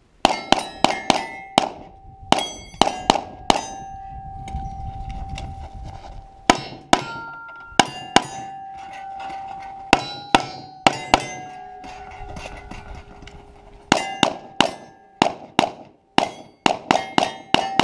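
Rapid 9mm shots from a Glock 34 pistol, each hit answered by the clanging ring of a steel target plate. The shots come in three fast strings with short pauses between them.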